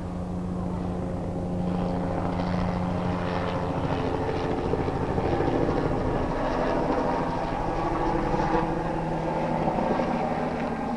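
Police helicopter flying overhead: a steady rotor beat over the engine and turbine whine, growing louder over the first couple of seconds, then holding.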